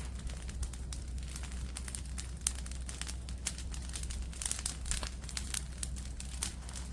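Brush-pile fire crackling while it builds a bed of coals: irregular small pops and snaps, many a second.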